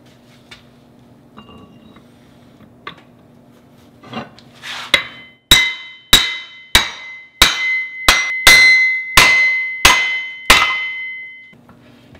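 Hammer striking a steel axle to drive it into a Toyota Supra rear differential: about ten sharp metal-on-metal blows, a little under two a second, each leaving a ringing tone. A few faint handling clicks come before the blows.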